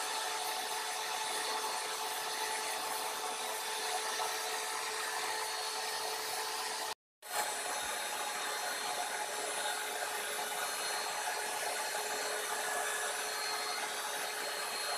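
Air blower running steadily, forcing air into a charcoal-fired crucible furnace: a constant rushing hiss with a faint motor hum. It breaks off for a moment about seven seconds in.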